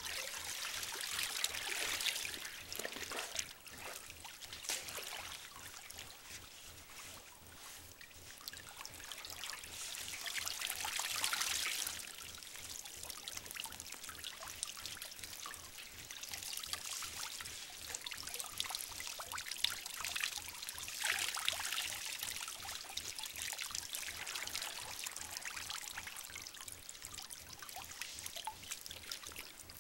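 Water sloshing and splashing in a galvanized metal tub and trickling and dripping off soaked nylon clothing as a person moves in it, swelling louder three times.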